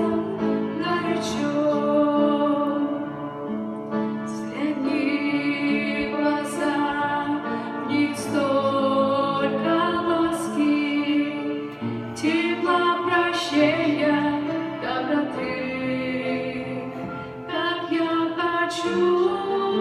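Two women singing a song as a duet, with instrumental accompaniment.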